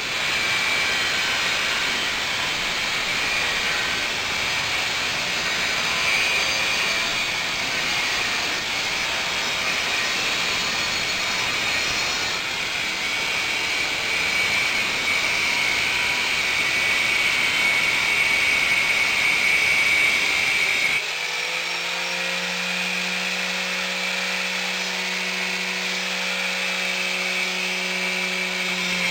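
Angle grinder running continuously, grinding and polishing a steel sickle blade. About 21 seconds in, the grinding noise drops away and a steady motor hum is left.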